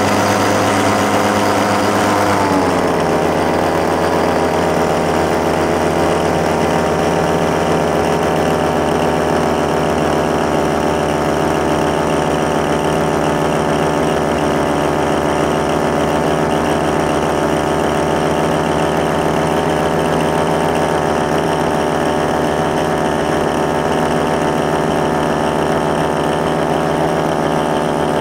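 Powered paraglider's paramotor engine and propeller running steadily in flight, heard from aboard. About two to three seconds in, its pitch falls as the engine slows, then holds steady at the lower speed.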